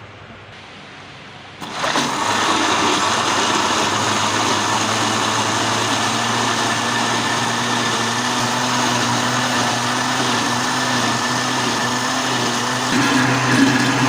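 Electric blender switched on about two seconds in and running steadily, blending a thick mango and custard mixture; it grows a little louder near the end.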